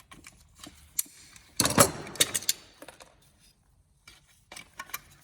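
Hand tools and parts clicking and rattling as a replacement mega fuse holder is fitted, with a dense burst of rapid clicks about two seconds in and a few more clicks near the end.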